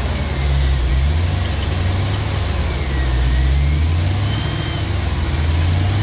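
GM LS V8 engine idling with a steady low rumble. It is running clean with no misfire now that the bad fuel injectors on one bank have been replaced.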